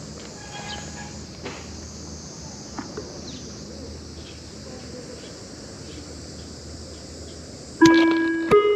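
Steady high-pitched insect chorus with a low background hum and a few faint clicks. Near the end, an outdoor public-address chime begins: two bell-like notes, the second higher, opening a town-office loudspeaker announcement.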